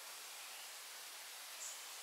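Faint outdoor ambience of steady high hiss, with an insect's high, pulsing trill starting near the end.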